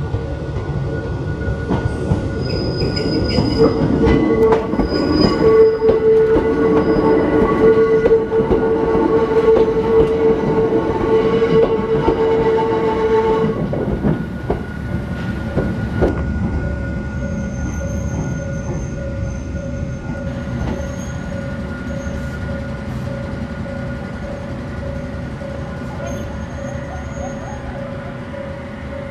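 Hakone Tozan Railway Moha 2 electric railcars rolling past on a tight curve, with the rumble of wheels on rail and a steady high wheel squeal. At about fourteen seconds in, the squeal stops and the rumble fades as the train passes, leaving a quieter steady hum.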